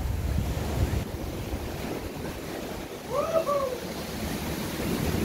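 Ocean waves washing and breaking on the shore, with wind buffeting the microphone. About three seconds in, a brief two-note tonal call rises and falls over the surf.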